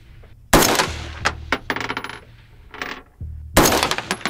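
Two rifle shots from an AR-15 with a 14.5-inch barrel firing 5.56, about three seconds apart, one about half a second in and one near the end. Each loud crack is followed by about a second of fainter clicks and ringing.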